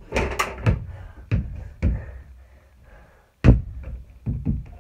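Knocks and thuds of a small basketball shot at a mini plastic hoop, the ball striking the backboard and rim and bouncing, with a hard thump about three and a half seconds in.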